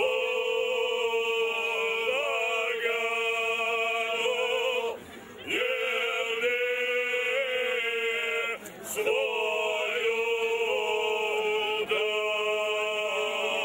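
A group of men singing ojkača, traditional unaccompanied Krajina folk song, in long held phrases with wavering, shaking notes. The singing breaks off briefly twice, about five and nine seconds in, before the next phrase starts.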